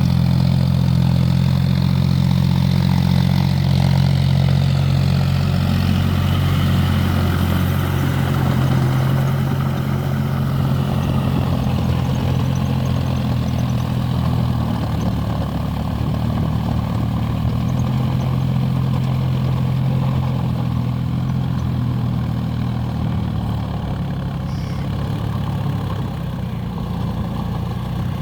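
John Deere 4WD tractor's diesel engine running steadily with a low, even drone, a little quieter after the first third.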